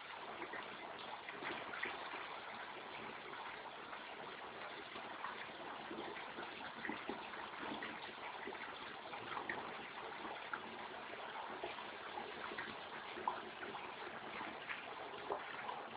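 Running water, trickling and gurgling steadily with many small splashes.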